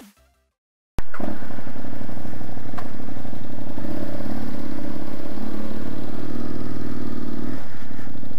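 2004 Aprilia Tuono's V-twin engine running as the bike pulls away slowly, starting about a second in after a brief silence, heard from a helmet camera. The engine note swells a little midway and eases off near the end.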